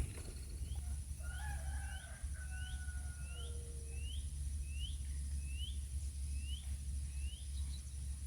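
A bird calling a steady series of about ten short, high, rising chirps, roughly one every two-thirds of a second, with a lower drawn-out whistle in the first few seconds. A steady low rumble runs underneath.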